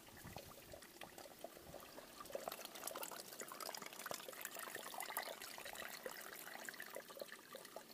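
Small mountain stream trickling and splashing, faint and irregular, a little louder after about two seconds.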